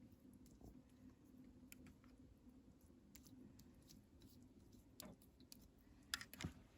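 Near silence: faint room tone with scattered soft clicks, a few more distinct ones about six seconds in.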